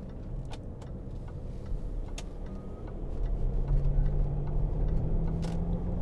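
Range Rover 3.6 TDV8 diesel engine and road noise heard from inside the cabin while driving, growing louder with a steady low hum from about halfway through. A few light clicks.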